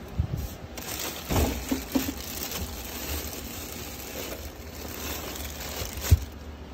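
Plastic food containers being lifted out of a fridge among plastic bags: crinkling and rustling with a few knocks of containers, the loudest knock near the end.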